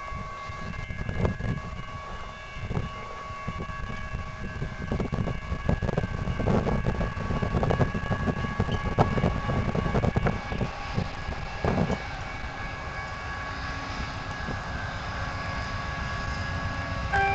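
VIA Rail P42 diesel locomotive and its train approaching, a low rumble that grows louder, over several steady high tones.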